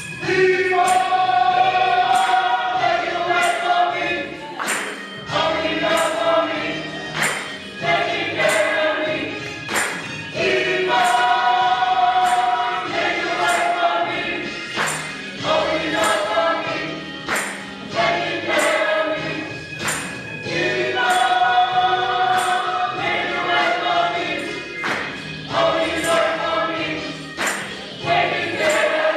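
Gospel choir singing with band accompaniment, a crisp percussion hit marking each beat a little under once a second.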